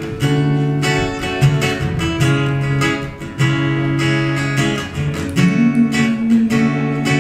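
Acoustic guitar strummed in steady chords, the instrumental introduction before the singing comes in.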